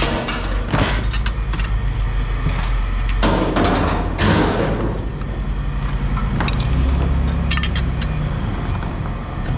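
Pieces of scrap metal clanking and clattering as they are handled and tossed, over the steady low rumble of an engine running. A longer rattling clatter comes about three to four and a half seconds in.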